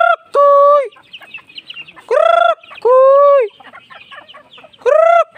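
Chickens calling loudly at feeding time: three two-part calls about two and a half seconds apart, each a rising note followed by a level held note, with quieter clucks between.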